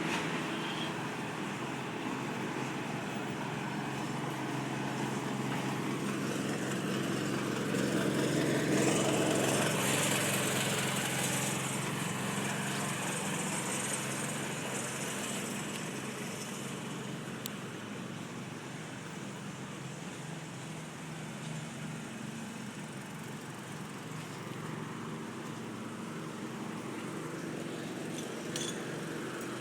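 Road traffic with an engine running steadily, and a vehicle passing that swells loudest about nine seconds in and then fades.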